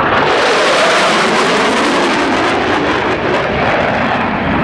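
F/A-18 Super Hornet jets flying past, a loud steady rush of jet engine noise whose highest hiss fades toward the end.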